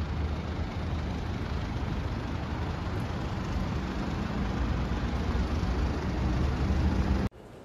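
City street traffic: a steady low rumble of passing vehicles. It cuts off suddenly near the end.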